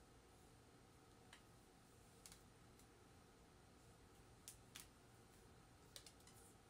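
Near silence: room tone with a handful of faint, scattered clicks.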